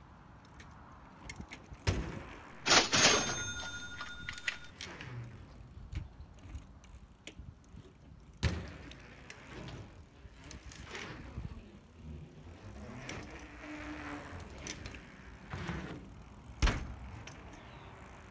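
BMX bike dropping in on a quarter-pipe ramp: a loud double bang about three seconds in as the tyres hit the ramp, ringing on for about a second, then rolling noise and a few more knocks from the bike on the ramps and pavement.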